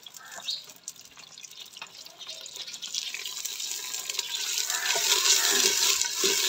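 Sliced onions sizzling in hot ghee in a clay cooking pot while being stirred with a wooden spoon. The sizzle builds into a loud, steady hiss from about three seconds in.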